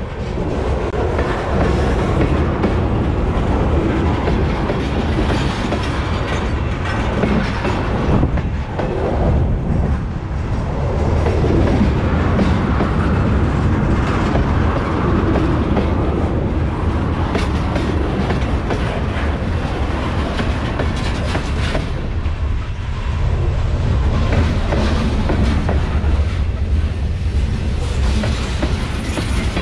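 Freight train rolling past, a steady heavy rumble with the clickety-clack of wagon wheels over the rail joints.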